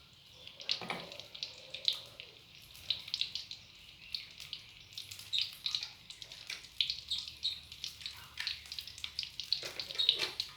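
Sliced shallots and garlic sizzling and crackling in hot cooking oil in a frying pan, an irregular stream of small pops.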